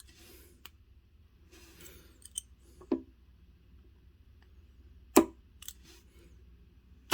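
Lock pick and tension wrench working the pin stack of a Sesamee padlock: faint scratching and a few sharp metallic clicks as serrated pins and spools set, with the loudest click about five seconds in and another sharp click at the very end as the padlock opens.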